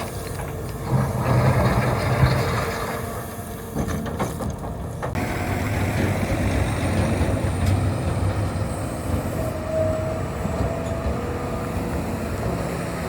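Hitachi 350 excavator's diesel engine working under load, louder about a second in, easing around three seconds, then running steadily, with a few short metallic knocks.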